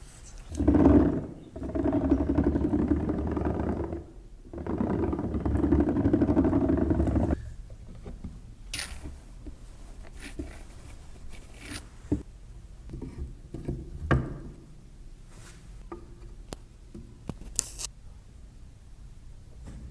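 A small power tool running in two bursts of a few seconds each, stopping abruptly, followed by light clicks, knocks and scraping from hand work on wood.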